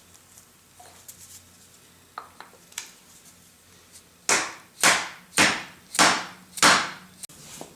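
Five hammer blows about half a second apart, driving a bearing onto a table roller's shaft, after a few light clicks of handling.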